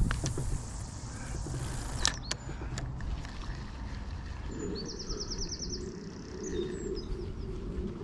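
Steady wind rumble on the microphone over open water, with a few faint clicks in the first three seconds. About five seconds in a bird gives a short, rapid trill of about ten high notes, and a low hum sets in just before it.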